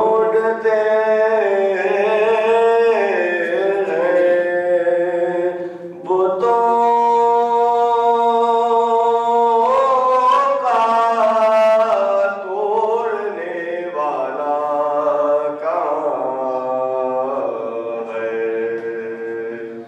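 A man's solo voice chanting unaccompanied into a microphone, holding long notes that slide and waver, with a short breath pause about six seconds in.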